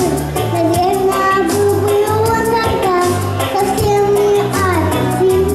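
Three young girls singing a melody together into microphones over a recorded pop backing track with bass notes and a steady beat.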